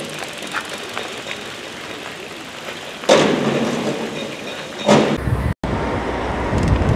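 Road traffic, with a vehicle passing close and loud about three seconds in. The sound drops out briefly near the end, then a steady low rumble follows.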